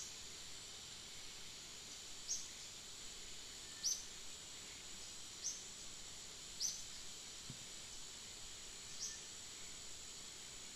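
Forest ambience: a steady high insect drone, with a short high chirp that falls in pitch repeating every second or two.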